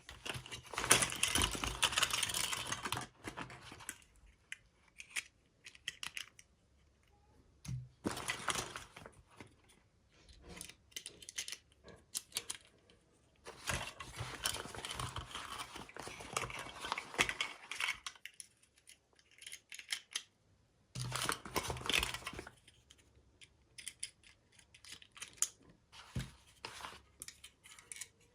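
Packaging torn open and crinkled by hand in four bouts of rustling, with small clicks and taps of handling between them.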